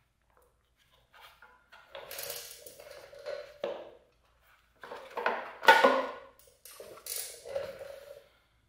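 Plastic air filter cover being unclipped and pulled off a small pressure washer engine, with irregular clicks, knocks and scraping rattles as the parts are handled; the sharpest knock comes a little past halfway.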